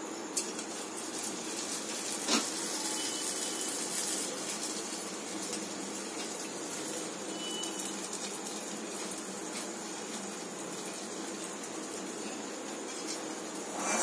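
Hot ghee and oil sizzling steadily in a steel karai around a test pinch of chhana dough, the check that the fat is hot enough for frying, with a couple of faint clicks.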